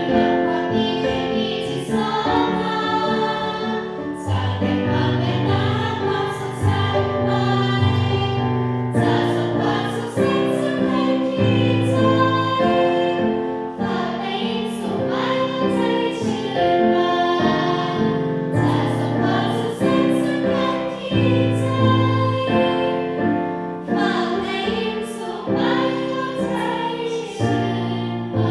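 A girls' school choir singing a slow Thai song in several parts, accompanied by an electronic keyboard with a bass line under the voices.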